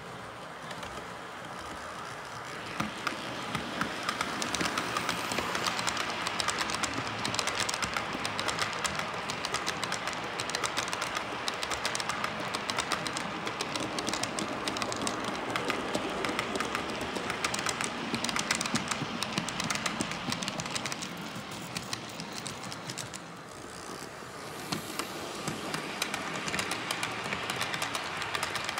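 Model train of coal hopper wagons rolling past close by, the wheels clicking rapidly over the rail joints with a steady rolling hiss. It grows louder about three seconds in, eases off briefly near the end, then picks up again.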